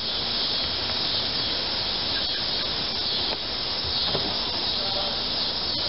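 A steady, even hiss, with a few faint ticks in the second half.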